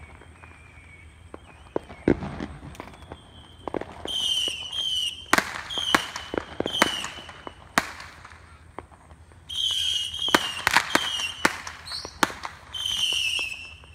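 Fireworks going off: a string of sharp firecracker bangs and pops, mixed with several shrill whistles from whistling fireworks. The whistles and bangs come thickest from about four seconds in and again from about nine and a half seconds on.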